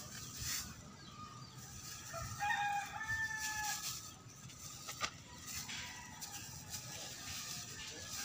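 A rooster crowing once, a single drawn-out call of about a second and a half a couple of seconds in, over light crackling of plastic wrap being handled around a papaya trunk.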